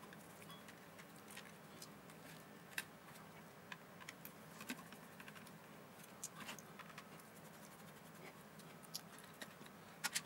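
Faint, scattered clicks and light taps of a multimeter's circuit board being handled and prised out of its plastic case with a screwdriver, with a quick cluster of clicks near the end.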